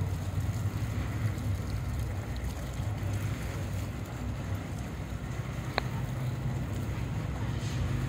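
Steady low engine rumble, with one sharp click about six seconds in.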